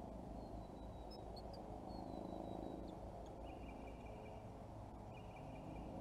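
Faint outdoor ambience with animal calls: a thin high whistle that slowly falls in pitch, then short trills repeated twice, over a steady low rumble.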